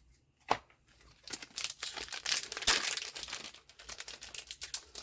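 Trading-card booster pack wrapper being torn open and crinkled, with a single sharp click about half a second in.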